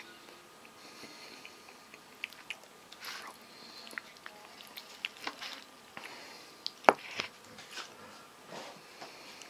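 A man chewing and smacking his lips close to the microphone, with scattered small clicks of eating and one sharp click about seven seconds in.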